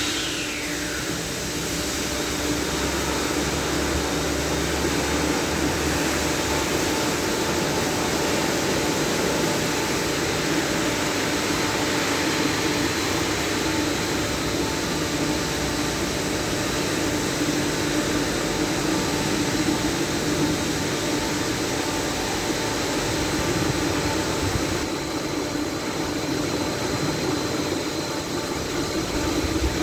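Car wash blower dryer fans running: a steady rush of air with a constant hum. A brief falling whine sweeps down right at the start.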